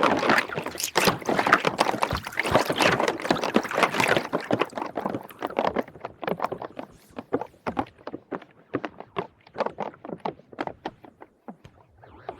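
Plastic rings clattering and splashing in soapy water: a dense run of quick clicks and splashes that thins out to scattered clicks after about five seconds.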